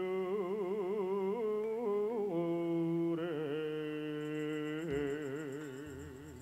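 A man's voice chanting Javanese sung narration in long, wavering melismatic notes, then fading away near the end.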